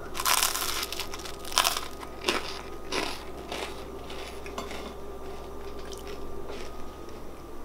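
Crisp, extra-toasted cinnamon raisin Ezekiel bread being bitten and chewed. A loud crunchy bite comes just after the start and another about a second and a half in, then chewing crunches grow smaller and fainter.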